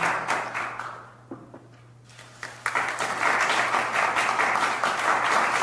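Applause from a group of people clapping, dying away about a second in and breaking out again about two and a half seconds in.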